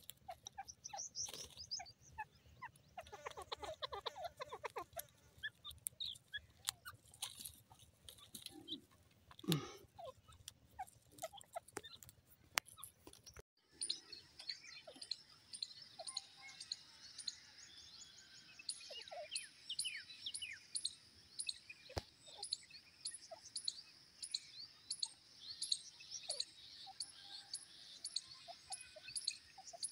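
Grey francolins giving soft, scattered calls and chirps, with odd clicks. About halfway through, the sound changes to a steady high buzz with regular ticks about twice a second, with a few short calls over it.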